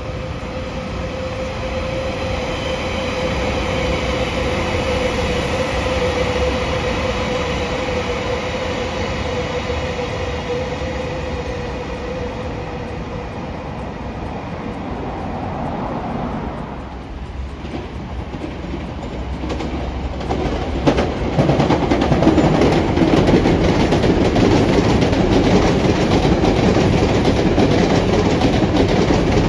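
A train running on the rails: a steady whine over the first half, then louder from about twenty seconds in, with wheels clacking over rail joints.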